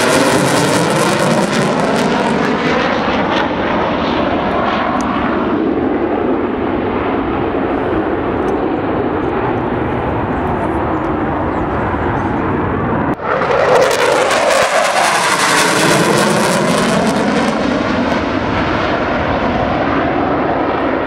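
Jet noise from the F-15E Strike Eagle's twin turbofan engines as it flies past overhead. The sound is loud and rushing at first, and its hiss thins out as the jet draws away. After a sudden break about 13 seconds in, a second loud jet pass begins and fades the same way.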